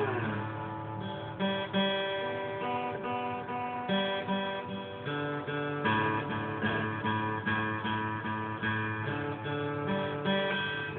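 Guitar picked and strummed in a slow, steady pattern of chords and single notes. At the very start, the tail of an Afghan hound's howl slides down and fades out.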